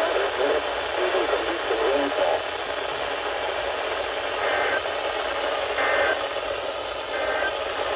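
Radio receiver tuned to a weak broadcast signal: a steady wash of static hiss with faint, barely audible speech under it in the first couple of seconds. Three short faint tones come through the static, about a second and a half apart.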